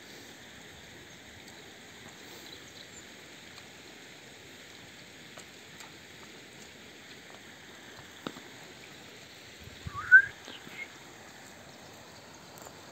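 Shallow mountain stream trickling steadily over stones. A short rising bird chirp stands out about ten seconds in, with a couple of fainter chirps just after, and a single sharp click a little before.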